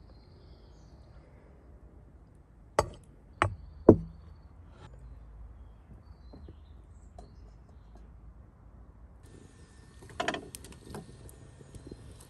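Three sharp knocks about half a second apart, the last one loudest, then a short clatter of lighter knocks near the end.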